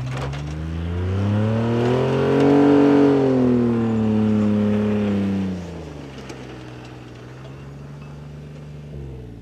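Pickup truck's engine revving hard as the truck powers through deep snow out of a dip. The pitch climbs over the first couple of seconds and holds, then eases off about five and a half seconds in, and the engine runs on more quietly as the truck pulls away.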